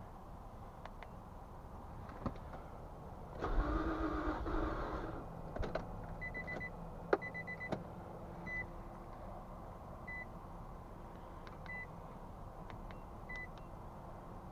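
A short electric whirring buzz lasting about two seconds, followed by a string of short high beeps and clicks from an OBD2 scan tool while its fault codes are being cleared.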